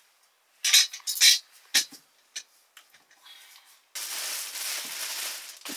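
A few short knocks and clicks as metal chair legs are handled, then steady crinkling of plastic packaging from about four seconds in.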